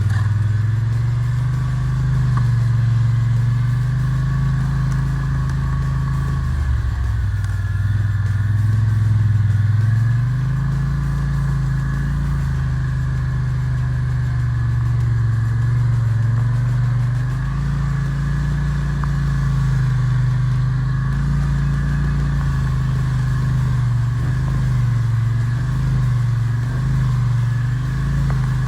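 ATV engine running while riding, its note rising and falling with the throttle: it drops about seven seconds in and picks up again around ten seconds, with a steady higher whine alongside.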